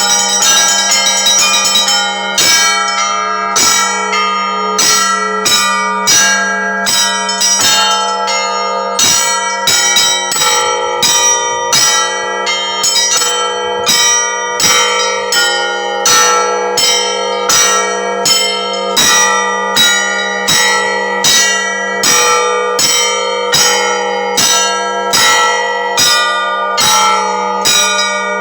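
Russian Orthodox church bells ringing: a dense jangle of strikes for about two seconds, then a regular pattern of about two strokes a second. A low bell's hum holds steadily underneath.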